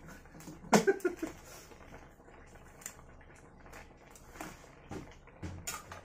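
Scattered light clicks and knocks, the loudest a sharp knock about a second in.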